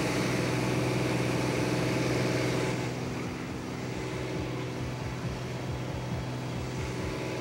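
Cabin sound of a single-engine high-wing light aircraft in flight: the piston engine and propeller drone steadily under a rush of wind noise. About three seconds in it drops a little, and a faint, low, evenly spaced beat from background music fades in over the second half.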